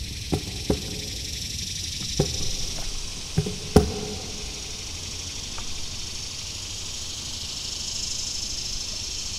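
Paddle knocking against a plastic kayak hull: five short hollow clunks in the first four seconds, the last the loudest, over a steady high hiss.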